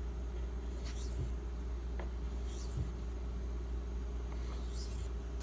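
Maxamet knife edge sliding across a 1000-grit diamond bonded waterstone in slow strokes: a short scraping swish about every second and a half, three times, over a steady low electrical hum.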